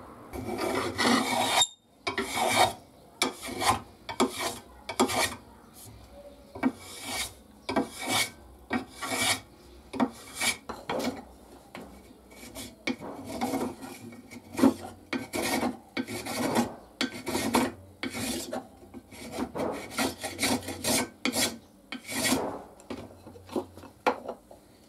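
Metal hand plane shaving a wooden strip clamped in a vise, in repeated quick rasping strokes about one or two a second.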